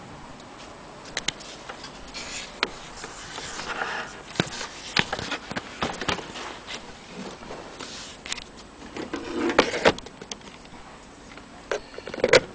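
Irregular clicks, knocks and scrapes of something being handled by hand, with a louder cluster of knocks near the end.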